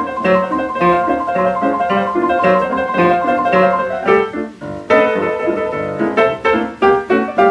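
Jazz piano from a 1941 78 rpm record, playing chords and a moving melody line. The playing breaks off briefly about four and a half seconds in, then picks up again.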